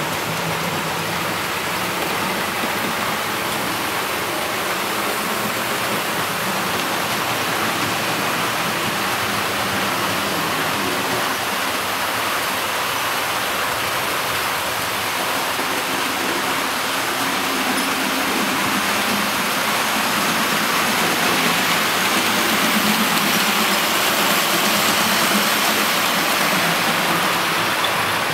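00 gauge model trains running on the layout track: a steady rushing of wheels on rail with motor whir, growing louder over the second half as a train of coaches passes close by.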